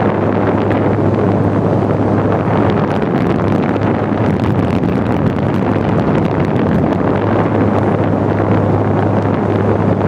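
Electric fan running with its airflow blowing straight onto the microphone: a loud, steady rushing that sounds like an airplane, over a constant low motor hum.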